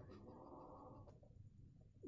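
Near silence: faint room tone, with a low hiss that fades out about a second in.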